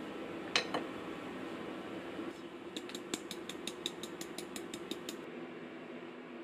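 A sharp clink of something set on a plate, then a small sieve tapped lightly and quickly, about seven taps a second for a couple of seconds, dusting powdered sugar over French toast.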